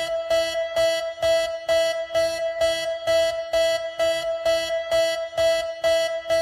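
Alternate Emergency Alert System alarm tone: a steady synthesized electronic tone pulsing evenly about twice a second.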